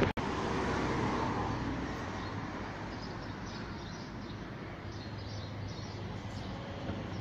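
Steady outdoor background noise, easing slightly, with a few faint high chirps in the middle.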